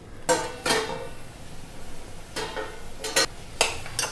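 Stainless-steel cookware clinking: a steel lid is lifted off a steel pot with pot tongs, and a steel spoon knocks and scrapes against the pot while stirring softened onions. There are about five sharp metal clinks, each with a short ring.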